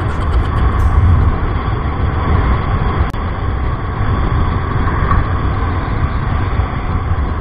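Steady wind rush on the microphone of a Honda Click 125i scooter ridden at speed, with road noise from the scooter underneath. There is a short break about three seconds in.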